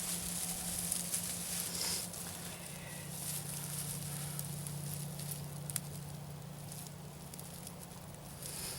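Dry tinder bundle being folded and squeezed closed around a glowing bow-drill coal: a steady crinkly rustling with small crackles and one sharp snap partway through, over a low steady hum.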